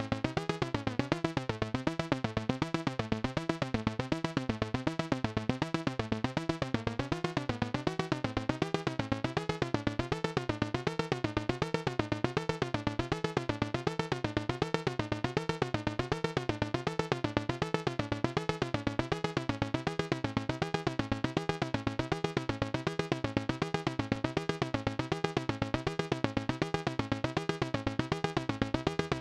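AnalogFX SER-2020 analog synthesizer (a rebuild of the Synton Syrinx) sounding a fast, evenly repeating pulse whose tone sweeps up and down under modulation, over a steady drone.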